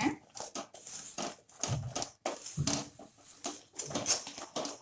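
Spatula stirring and scraping against a steel kadhai through thick, bubbling jaggery syrup, in quick irregular clicks and scrapes with heavier strokes about once a second. The syrup is kept moving so it does not stick to the bottom while it cooks.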